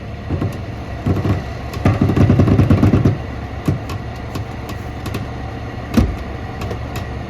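Tow truck's engine running steadily, growing louder for about a second from roughly two seconds in, with a few sharp metal clanks, the loudest about six seconds in, as a small bulldozer is pulled sideways on the truck's deck.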